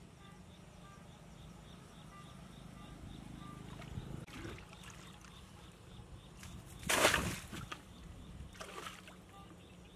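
Shallow muddy water splashing and sloshing as hands grope through it, with the loudest splash about two-thirds of the way in and smaller ones before and after it.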